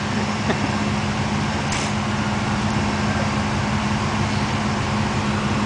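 Steady low motor hum holding one pitch during a winch recovery of a stuck off-road vehicle.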